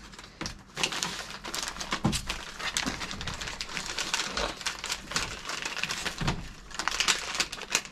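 Plastic MRE ration pouches and packaging crinkling and rustling as they are handled, an irregular run of crackles and rustles.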